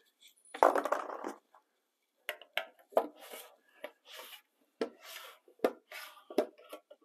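Lid of a one-gallon metal epoxy can being pried open: a scrape about half a second in, then a series of sharp metal clicks and short scraping sounds around the rim.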